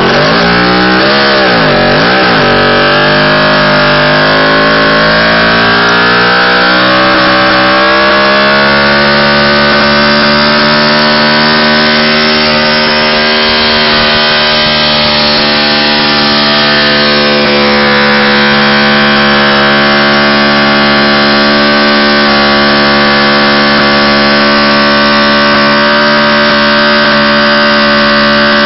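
Motorcycle engine revving hard during a burnout, rear tyre spinning. It is blipped up and down twice in the first few seconds, then held at high, steady revs.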